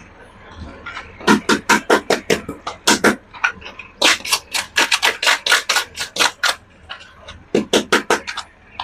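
Rapid runs of sharp clicks, about five or six a second, in three bursts with short pauses between them.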